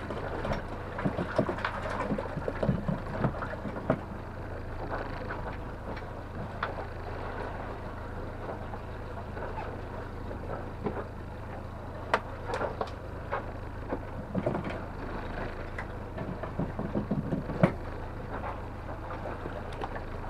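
Honda outboard motor running steadily as the small boat trolls, with water and wind noise over it. Scattered sharp knocks and thumps on deck, in a cluster at the start and again in the second half, the loudest near the end.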